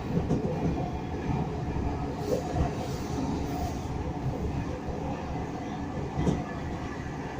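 Class 313 electric multiple unit, heard from inside the carriage, running along the track as it slows towards a station: a steady rumble of wheels on rails with a couple of short knocks.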